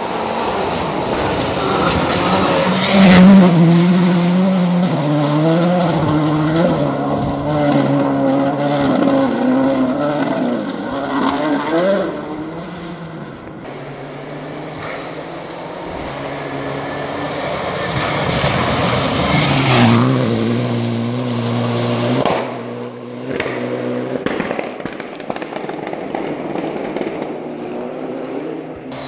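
Rally cars at full speed passing on a gravel forest stage: one goes by about three seconds in and another about twenty seconds in, each engine at high revs with its pitch stepping up and down through gear changes. A quick run of sharp cracks and pops follows the second car as it goes away.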